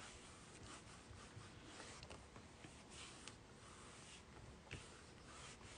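Faint rubbing and a few light ticks of hands pressing down firmly on a Stamparatus stamp positioner's plate to stamp the image.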